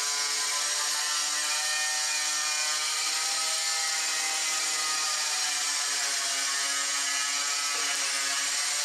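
A power tool runs steadily, a continuous whir with a strong hiss, its pitch drifting a little.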